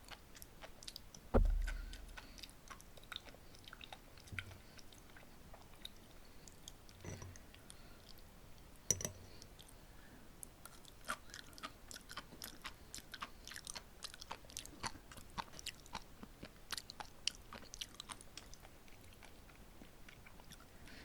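Close-miked chewing of sea grapes (green caviar seaweed): a steady run of many small crisp pops and clicks, busiest in the second half. One dull low thump, the loudest sound, comes about a second and a half in.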